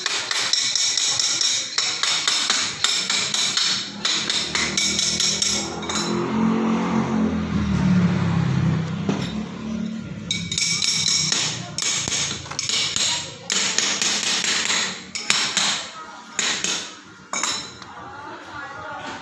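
Hammer striking metal again and again in quick runs, each blow ringing. In the middle a lower-pitched sound rises beneath the strikes for a few seconds.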